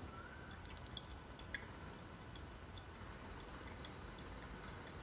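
Faint, irregular ticks and drips as brewed coffee drains through paper filters in two pour-over drippers into glass servers, over a low steady hum. One click about one and a half seconds in is the loudest.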